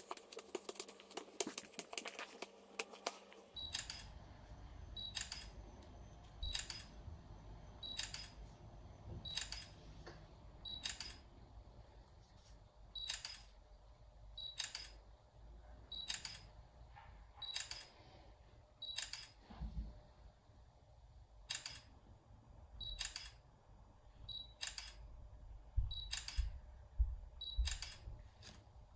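Charcoal on the fingertips scraping and scratching over paper for the first few seconds. Then it stops and a series of short sharp clicks follows, about one every second and a half.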